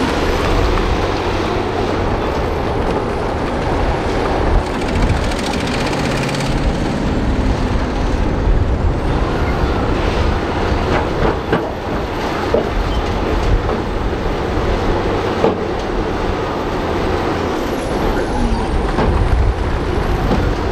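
Crawler bulldozer's diesel engine running steadily under load as it pushes rock and earth, with scattered knocks and clanks from the tracks and blade.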